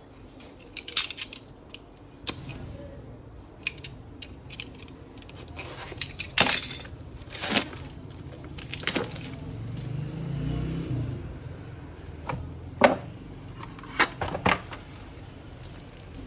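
Unboxing handling sounds: cellophane shrink-wrap on a phone box being cut and pulled off and plastic crinkling, with a scattered series of sharp clicks and taps as the box and its contents are handled.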